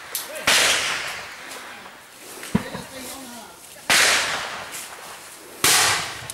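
Single gunshots fired close by: three loud shots a few seconds apart, each trailing off in a long echo, with a shorter, sharper crack between the first two.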